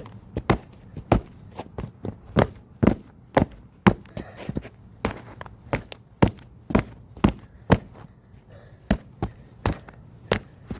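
A dropped Nokia 2780 flip phone being stomped and jumped on: a long run of sharp thuds and knocks, about two a second and unevenly spaced.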